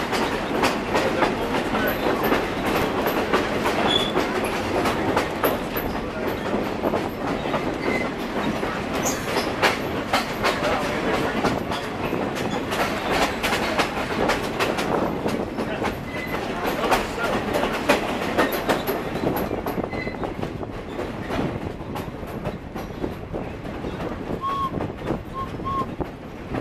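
Excursion train rolling along the track, heard from an open-air car: a steady rumble with a dense clatter of wheels over the rails, and a few brief high chirps. It gets a little quieter over the last several seconds.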